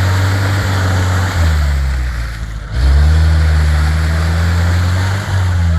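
An off-road vehicle's engine runs hard under load. Its note shifts about a second and a half in, dips briefly, then revs up loudest from about three seconds in.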